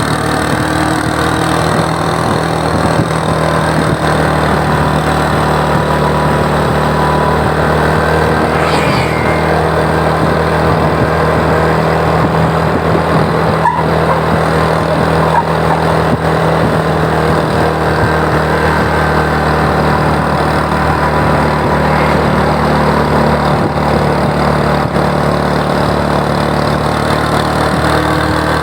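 Road vehicle engine running steadily while driving, with a continuous rumble of road noise and a brief higher-pitched sound about nine seconds in.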